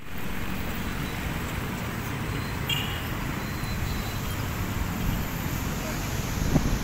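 Steady outdoor traffic noise from a nearby road, a continuous even hiss and rumble.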